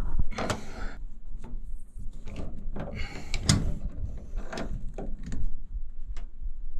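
Irregular clicks, knocks and rustling from pliers being handled and worked against a sheet-metal air handler cabinet, with one louder knock about three and a half seconds in.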